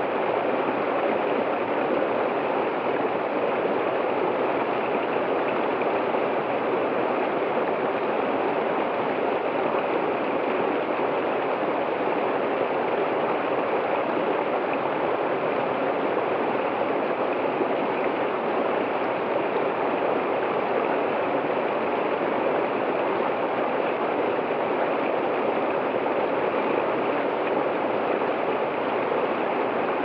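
Small waterfall cascading over rocks into a creek: a steady, unbroken rush of water.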